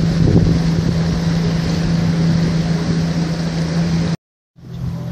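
A boat engine running at a steady pitch, with water and wind noise over it, heard from aboard a motorised rabelo boat. About four seconds in, the sound cuts out to silence for a moment, then the engine hum returns.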